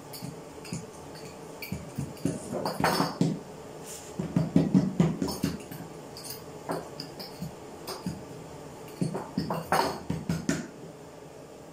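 Short wooden rolling pin rolling and knocking against a floured wooden board as a round of dough is rolled out thin, in irregular clusters of clattering taps.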